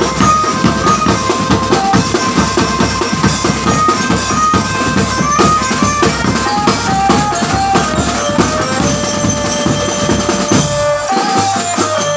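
Marching drum band playing: bass and other drums beat a fast, steady rhythm under a melody of held, stepping notes. Near the end the melody holds one long note, and the drums drop out about a second before the end.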